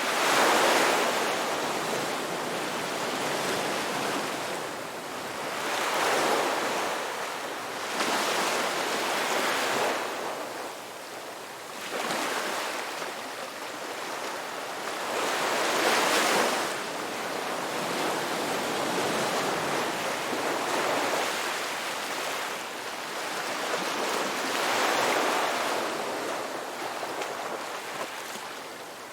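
Ocean waves breaking and washing on the shore, a continuous surf rush that swells and falls back every few seconds, with about six louder crests.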